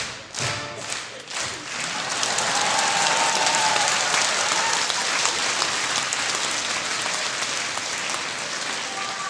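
Theatre audience applauding. After a few rhythmic beats, the applause swells about two seconds in and holds steady, easing slightly near the end.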